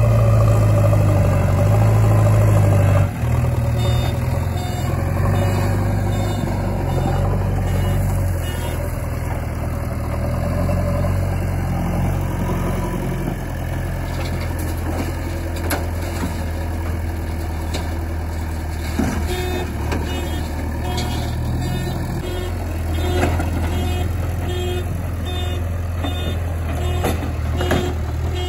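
Heavy diesel engines of a backhoe loader and tipper truck running steadily. About two-thirds of the way through, a reversing alarm starts beeping at a steady rate, and a few knocks come in between.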